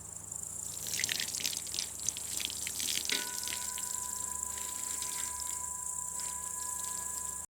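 Water splashing and dripping in irregular small splashes, over a steady high-pitched insect chirring; about three seconds in, a steady two-note whistling tone joins.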